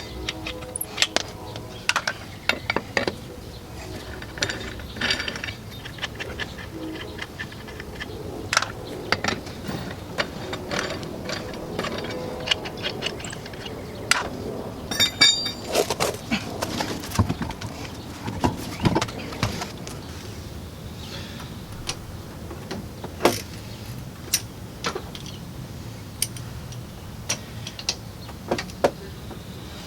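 Hand tools and metal brake parts clinking and clanking at the rear brake of a 2004 GMC Envoy during a brake job: a scattering of irregular metallic clicks and knocks, with louder clanks about 15 and 23 seconds in.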